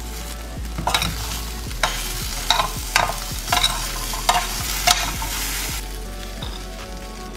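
Steel spoon stirring and scooping a potato and peanut stir-fry in a stainless-steel pot: a run of sharp clinks and scrapes of metal on metal for a few seconds, then quieter near the end.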